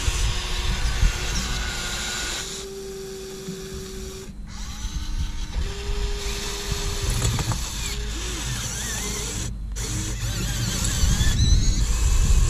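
Electric motors of a Huina 1580 RC excavator whining as the boom, arm and bucket move through the dirt, each move a held whine that starts, stops and shifts in pitch.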